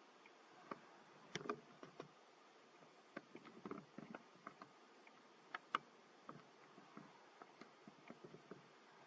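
Near silence with faint, scattered ticks and rustles, from monkeys shifting and stepping on dry dirt, pebbles and leaves.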